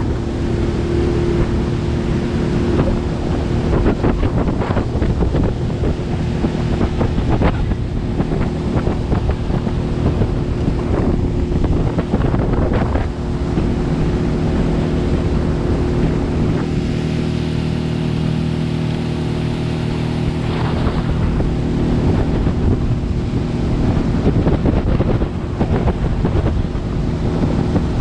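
Outboard motor running steadily at speed, pushing a small fishing boat up on the plane, with water rushing along the hull and wind buffeting the microphone.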